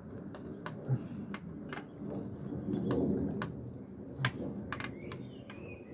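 Sharp clicks and knocks of a plastic fuel line and its fittings being handled and pushed into place, with a few low cooing sounds between them.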